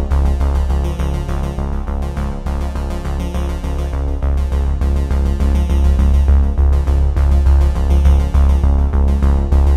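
Electronic background music with synthesizer and a steady beat.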